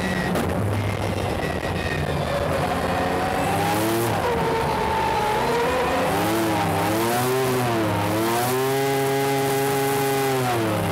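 Three-rotor turbo rotary engine of a tuned Mazda RX-7 race car, heard from inside the cockpit under hard driving on track. The revs climb and fall through several swings, hold high for a couple of seconds, then drop near the end.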